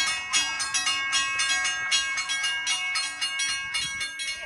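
Railroad grade-crossing signal bell ringing in rapid, evenly spaced strikes, about four or five a second: the crossing warning is active.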